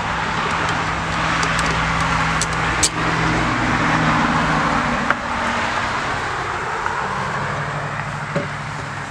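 A car passing on the road, its engine and tyre noise swelling and then fading away, with a few sharp knocks along the way.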